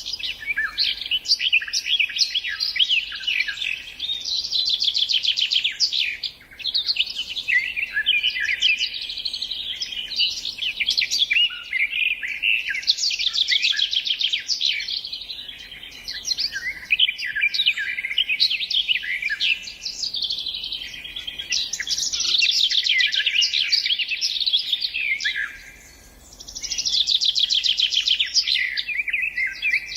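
Songbird singing a rich, fast song of trills and chirps, in long phrases of several seconds with short pauses between them.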